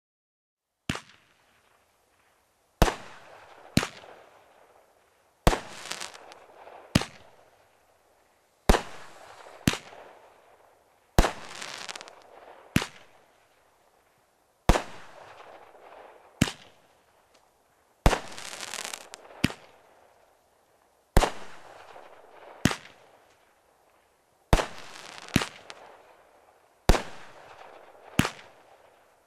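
TNT Fireworks 'Ozone' firework firing shot after shot: about twenty sharp bangs, often in close pairs, each trailing off in a hissing tail over a second or so. The first bang comes about a second in.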